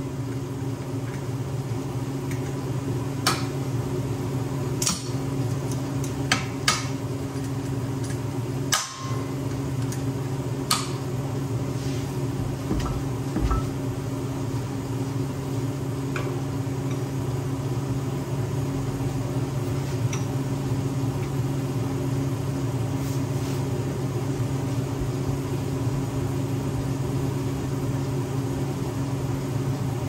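Steady low machine hum in a metal shop, with a few sharp metallic clinks and taps in the first eleven seconds or so, then only the hum.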